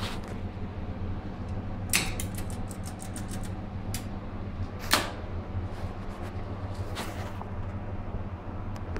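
Relays and contactors in a 1985 Thyssen hydraulic elevator controller clicking over a steady electrical hum. A click about two seconds in is followed by a quick run of about eight clicks, then single clicks about four, five and seven seconds in.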